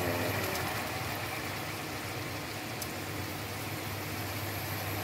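Chicken adobo sauce simmering in a nonstick wok, a soft bubbling hiss with faint ticks, over a steady low mechanical hum.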